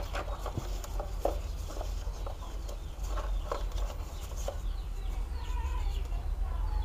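Light clicks and scrapes of a thin metal pry tool and a plastic pry card working under a phone's glued back glass, over a steady low hum. Birds call in the background from about five seconds in.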